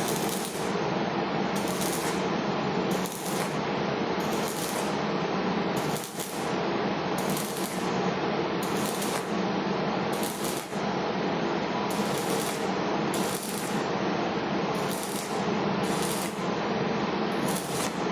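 Stick welding arc, crackling and sizzling steadily as the electrode burns.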